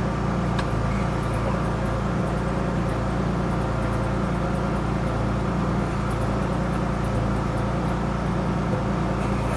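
1953 Chevrolet 3100 pickup's engine idling steadily, just brought back to running after sitting for a long time, together with its air-suspension compressor running to pump the suspension up.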